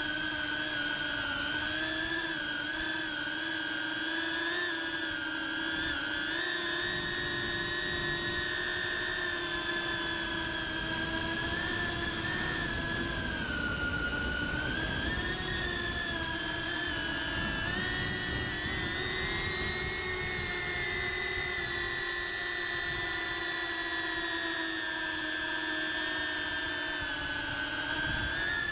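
Cinewhoop FPV drone's motors and ducted propellers whining steadily, the pitch drifting gently up and down as the throttle changes.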